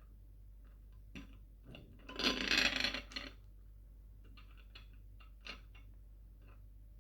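Small objects being handled: scattered light clicks and taps, with one loud rustling burst about two seconds in that lasts about a second.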